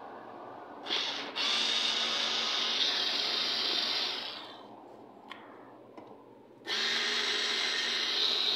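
Small cordless electric screwdriver running in two spells of a few seconds each, driving the screws in the top of an equipment case; the first spell starts with a short burst and a brief stop.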